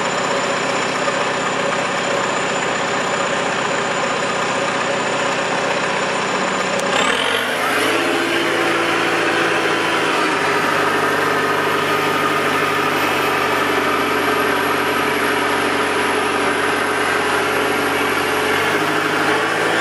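Vehicle engine running steadily, heard from inside the cab. About seven seconds in the engine note shifts to a new steady pitch as the vehicle gets under way.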